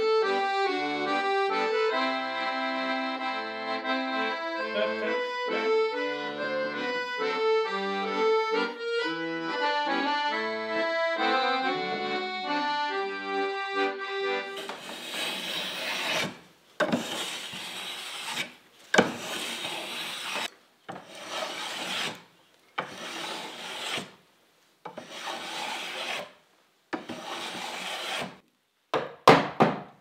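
Accordion music for about the first half. Then the scrape of a hand plane shaving timber takes over: about seven long strokes, one every two seconds or so, followed by two short quick ones near the end.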